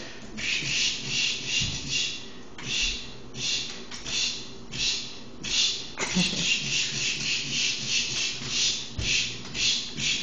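A hand rubbing and swiping over a kitten's fur in play, making a rhythmic rasping swish. The strokes are uneven at first, then settle to about two a second.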